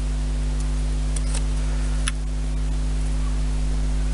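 A few light clicks and taps from small balsa wood parts being handled and dry-fitted by hand, the sharpest about two seconds in, over a steady electrical hum.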